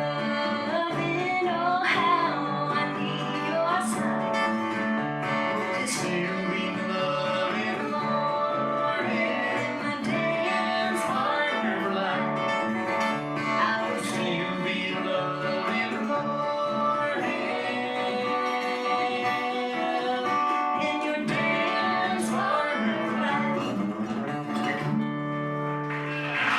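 Live acoustic country music led by strummed acoustic guitar, with sustained melodic notes over it.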